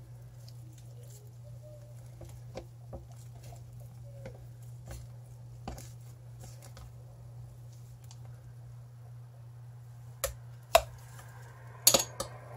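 Metal spoon scooping thick, sticky cream soap paste and pressing it through a plastic funnel into a glass jar: soft squelches and light scrapes, with a few loud sharp knocks near the end as the spoon and funnel hit the jar and tub. A steady low hum runs underneath.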